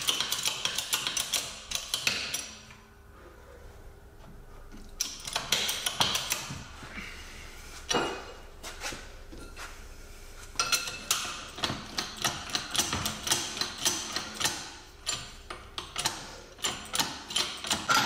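Bursts of sharp metal clicks and knocks from hand tools working on a suspension bearing, with rapid strokes that pause and resume three times.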